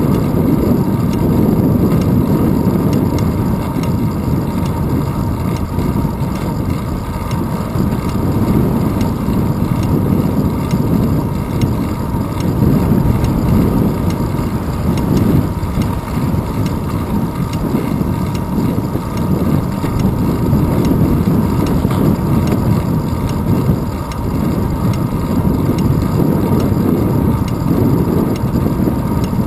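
Wind buffeting the microphone of a handlebar-mounted GoPro Hero 2 on a moving bicycle: a loud, low, steady rushing noise that swells and eases.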